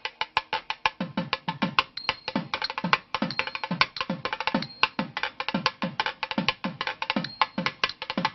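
Background music with fast, clicking percussion strokes. About a second in, a deep drum joins, each beat dropping in pitch, about two beats a second.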